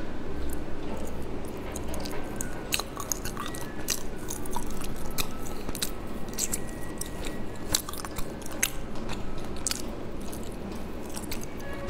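Close-miked mouth sounds of a person biting into and chewing soft mochi cakes, with many short sharp clicks throughout.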